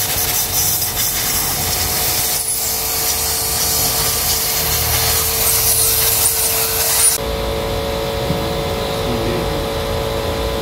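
Compressed air hissing from an air blow gun as it blasts leftover WD-40 out of a scooter's spin-on oil filter, stopping abruptly about seven seconds in. An air compressor hums steadily underneath.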